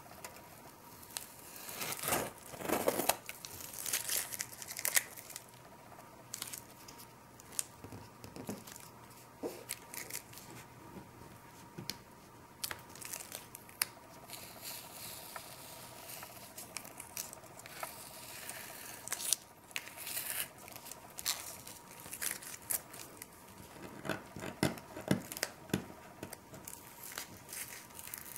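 Bristle paintbrush scratching and dabbing short strokes of acrylic paint onto textured paper, in irregular runs of dry, scratchy strokes with pauses between.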